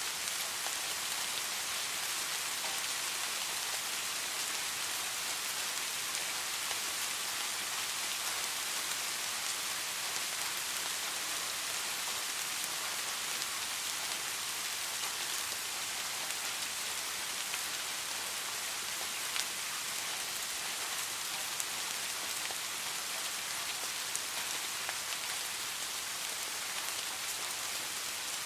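Steady rain falling, an even hiss with scattered drop ticks, a few slightly louder drops near the end.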